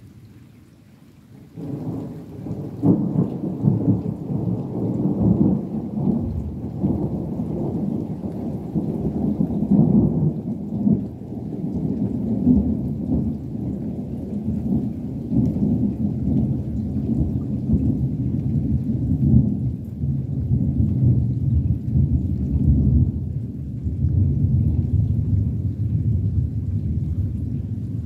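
A long peal of thunder: a low rolling rumble that breaks in suddenly about a second and a half in, then keeps rolling, swelling and easing in waves through the rest.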